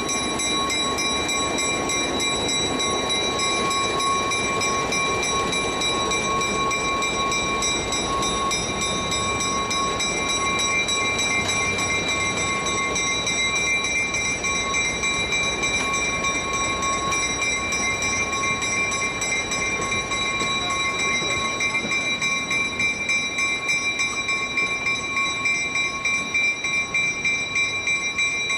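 Old steel passenger coaches rolling slowly past on the rails, a steady rumble over a constant high-pitched whine of several tones. Near the end the sound takes on a regular pulsing rhythm.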